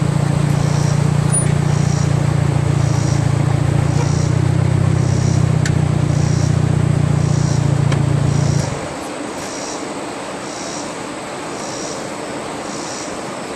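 Volkswagen Passat engine idling steadily, then switched off about two-thirds of the way through.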